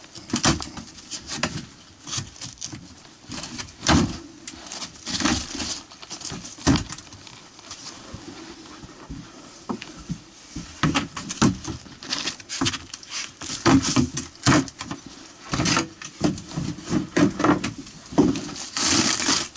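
Irregular knocks, scrapes and rustling from a firefighter picking apart foil-faced insulation and wooden boards around a metal stove chimney pipe, opening it up to find where the smoke is coming from. There is a denser stretch of crinkling rustle near the end.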